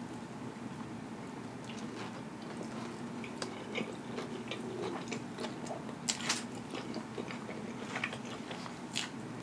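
Close-miked chewing of a mouthful of plant-based Impossible Whopper burger: soft mouth sounds with scattered small crackles, a few sharper clicks around six seconds in.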